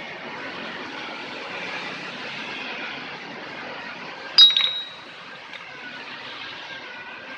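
Car engine idling steadily, with one sharp metallic clink that rings briefly about four and a half seconds in.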